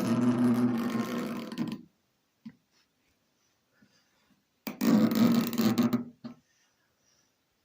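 A writing tip squeaking as it is drawn across a surface in two long strokes: one ending about two seconds in, the other about five seconds in. Between them there are a few faint ticks.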